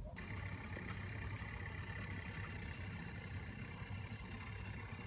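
Steady hum of a running motor, starting abruptly just after the opening and holding even throughout.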